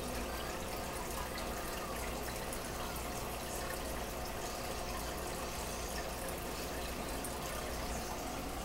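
Aquarium aeration and filter water bubbling and trickling steadily, over a low steady hum.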